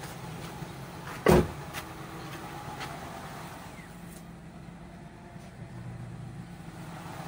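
Ford Escape's V6 engine idling steadily, with one loud thump about a second in.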